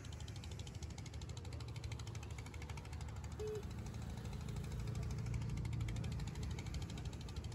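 Wind buffeting the microphone: a steady low rumble that swells a little past the middle, with a brief high tone about three and a half seconds in.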